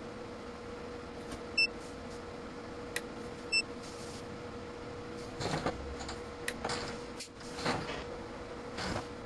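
Two very short, high beeps, about one and a half and three and a half seconds in, typical of a digital multimeter's piezo buzzer, as the Amprobe AM-510 meter is surge-tested. A sharp click comes just before the second beep, a few brief noisy scuffs follow in the second half, and a steady low hum runs underneath.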